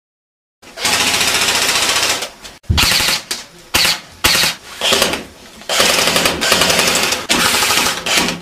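Airsoft guns firing on full auto at close range, in several long rapid bursts with short breaks between them.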